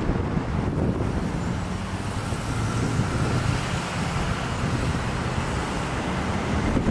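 Steady rumble of road traffic, with a low engine drone strongest around the middle.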